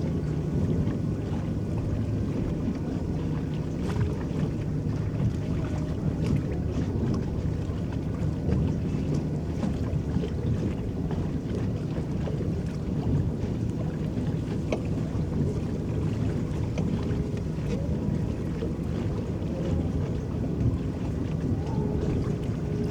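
Electric boat moving across a lake: water churning and lapping around the hull as a steady low rumble.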